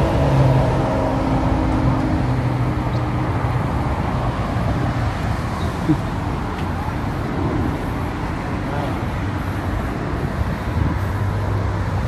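Steady road traffic noise from passing cars and trucks, with the low engine hum of a heavy vehicle in the first second and again near the end.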